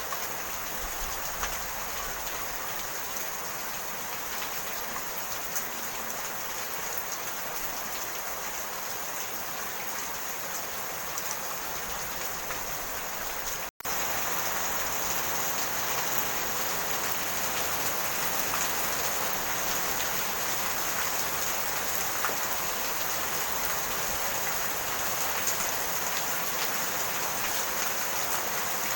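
Steady rain falling, an even, dense patter. About halfway through it cuts out for an instant, then comes back a little louder.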